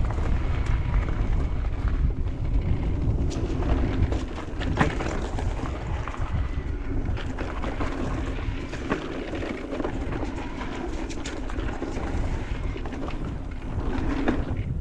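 Electric mountain bike ridden along a dirt forest trail: wind buffeting the action-camera microphone and tyre rumble, with frequent clicks and rattles from the bike over roots and bumps. The rumble is heaviest for the first few seconds, then eases.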